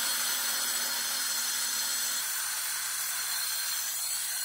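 Festool TS 55 plunge-cut track saw cutting a stone countertop slab along its guide rail: a steady, high hiss of the blade in the stone.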